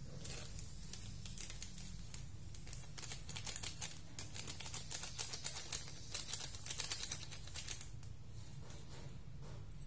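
A run of quick, light clicks and scrapes, a metal spoon working in a small container of ground pepper, densest from about three to eight seconds in, over a steady low hum.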